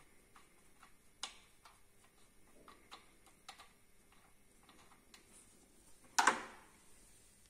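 Faint, irregular light metallic clicks as a bolt is turned by hand in a freshly cut thread in a metal coolant housing. About six seconds in comes one louder knock with a short rustle as the hand pulls away.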